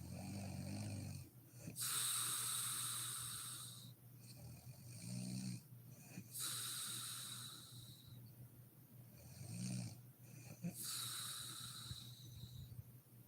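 A sleeping woman snoring: three breaths about four and a half seconds apart, each a short low snore followed by a longer, breathy, hissing exhale.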